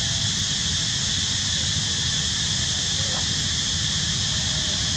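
Steady outdoor background noise: an even high hiss over a low rumble, with a few faint short tones.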